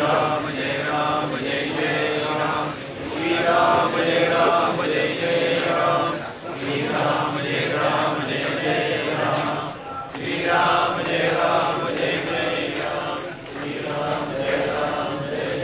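Hindu Vedic mantra chanting: voices intoning in phrases of about three to four seconds, each followed by a short breath-like break.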